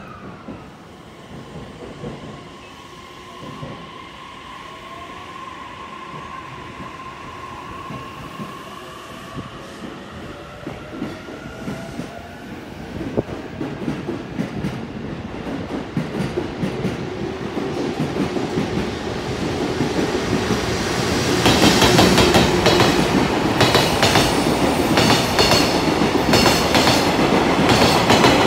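A container freight train hauled by a JR Freight EF210 electric locomotive approaching and passing at speed: a rumble that builds from faint to loud, then, from about three-quarters of the way in, a rapid rhythmic clatter of wagon wheels over the rail joints.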